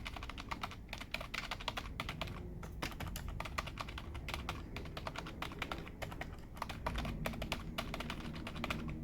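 Typing on a Corsair K55 RGB membrane keyboard: a rapid, irregular run of soft key clicks.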